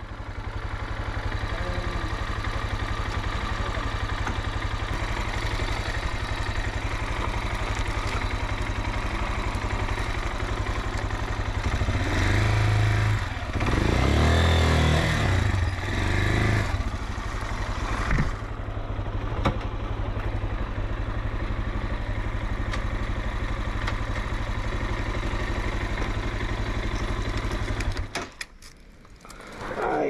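Motorcycle engine running steadily, revving up and down briefly about halfway through, then switched off a couple of seconds before the end.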